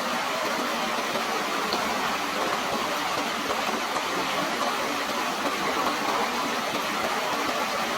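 Water rushing steadily, an even hiss with no breaks or separate splashes.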